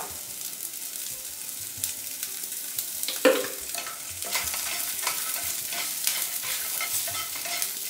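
Shallots, green chillies and curry leaves frying in a pan, sizzling steadily while a spoon stirs and scrapes them, with frequent small clicks and one louder clack about three seconds in.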